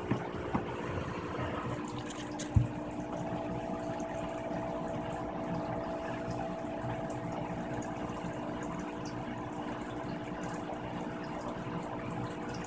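A steady background hum and hiss with a few fixed low tones, like a small pump or motor running, broken by a few short knocks, the loudest about two and a half seconds in.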